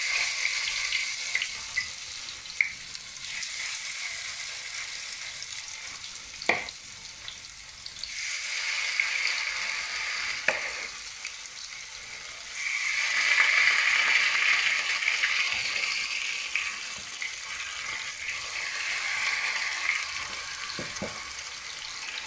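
Grated raw-potato rösti batter frying in plenty of hot oil in a pan, a steady sizzle that swells twice as fresh portions of batter go into the pan. A few sharp clicks of a metal utensil against the pan.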